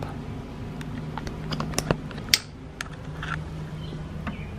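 Keurig B40 coffee maker just switched on and heating: a low steady hum with scattered light clicks and taps, the sharpest a little over two seconds in.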